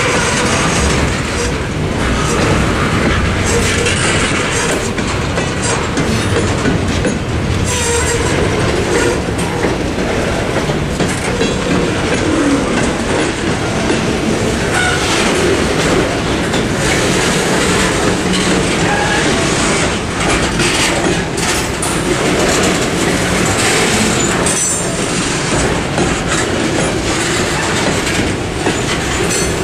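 Freight cars, tank cars and covered hoppers, rolling slowly over a level crossing. Their steel wheels rumble steadily and clack over the rail joints.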